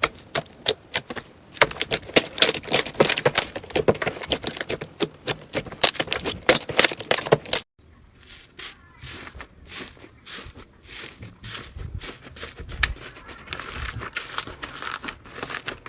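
Slime being squeezed and poked by hand, giving rapid, irregular crackling clicks. About halfway through, it cuts abruptly to a quieter stretch of softer, sparser clicks.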